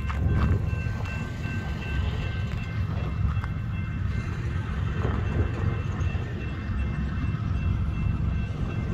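BNSF double-stack intermodal freight train starting to roll slowly after a stop, with its locomotives throttling up: a steady low rumble with a few faint, steady high-pitched tones over it.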